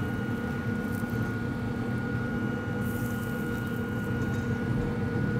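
Yoder pellet grill running hot, a steady electric hum from its fan with a faint high whine.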